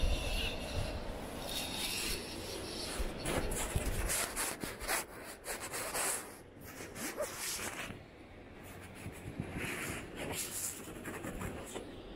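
Scratchy rubbing and handling noise on a handheld microphone, with irregular crackles and clicks and uneven loudness.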